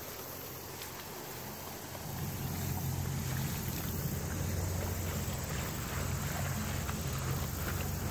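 A boat's engine running with a steady low drone, coming up louder about two seconds in and holding.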